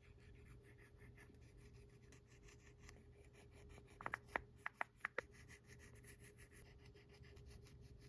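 Sharpie permanent marker rubbing faintly on a glossy paper checklist as boxes are filled in, with a quick run of about six sharp squeaks from the felt tip about four to five seconds in.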